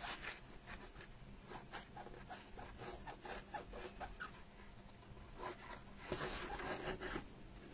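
A small tool pushing and rubbing felt into grooves cut in a polystyrene foam pumpkin: faint, quick scratchy strokes, many in a row, a little denser near the end.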